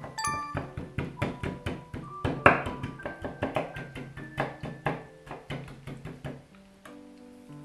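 A large kitchen knife chopping fresh dill on a bamboo cutting board: a quick, even run of knocks, several a second, stopping about six and a half seconds in.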